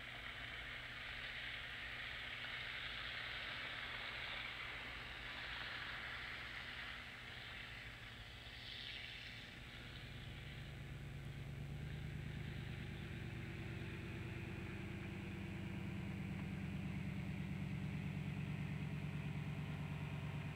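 An engine running with a low, steady hum that sets in about halfway through and grows louder toward the end, over a steady hiss that fades in the second half.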